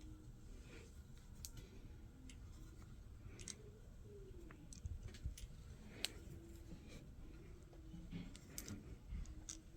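Faint, scattered clicks and short creaks as a new bronze temperature-and-pressure relief valve is turned and tightened into the threads of a gas water heater tank.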